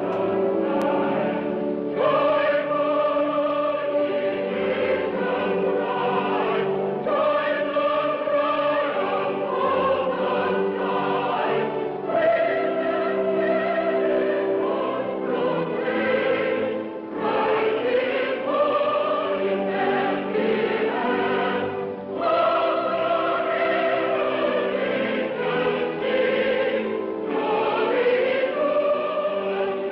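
A choir singing a slow piece in long held phrases, with a short break between phrases about every five seconds.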